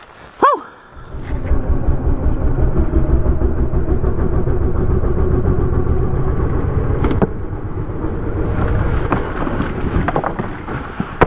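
Single-cylinder engine of a Honda CRF250L dual-sport motorcycle running on a muddy trail, a low, steady, pulsing drone. A brief rising-and-falling tone comes about half a second in, and a few knocks and clatters near the end as the bike goes down in a low-side crash.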